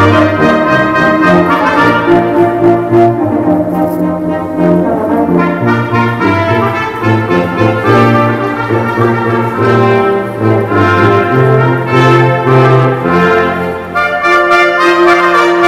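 Brass quintet of trumpets, trombone and tuba playing a piece in sustained chords over a moving tuba bass line, ending on a long held note.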